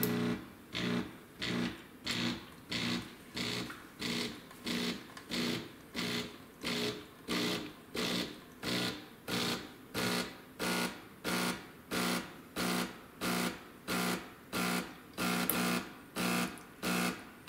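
The vibratory pump of a De'Longhi Lattissima One Nespresso machine running in its descaling cycle: a humming buzz switching on and off in short, even pulses, about three every two seconds, as it pushes descaling solution through the coffee outlet.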